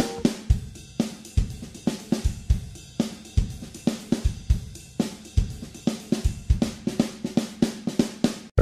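Background music: a drum kit playing a steady beat on its own, with kick, snare and hi-hat, and no guitar or bass. It breaks off for a moment near the end.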